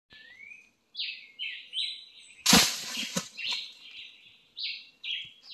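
Songbirds chirping over and over. About two and a half seconds in there is a short crash of rustling leaves with a dull thud, then a couple of knocks.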